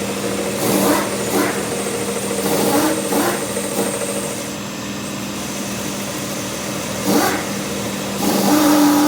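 A machine motor running with a steady hum, broken by several short, noisy bursts.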